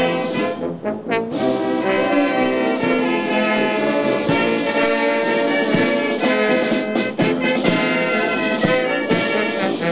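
Brass band playing music in held chords that change every second or so.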